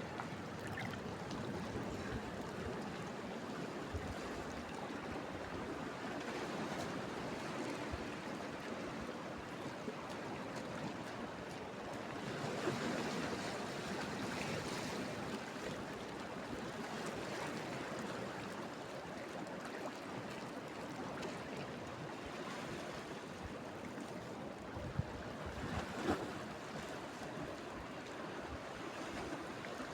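Sea surf washing steadily onto the shore, with two brief sharp knocks near the end.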